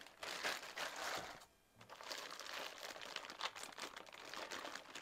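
Packaging crinkling and rustling as a boxed model locomotive is unwrapped by hand, in two stretches with a short pause about a second and a half in.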